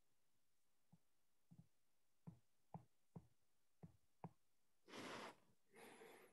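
Near silence, with about seven faint, soft taps of a stylus on a tablet screen while a word is handwritten, then a soft hiss about five seconds in.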